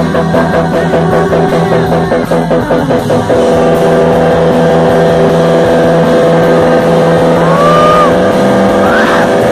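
Live psychedelic rock band with electric guitars, keyboard and drums playing a pulsing rhythmic figure that stops about three seconds in. It gives way to a loud, sustained drone of held notes through effects pedals, with a few sliding, swooping tones near the end.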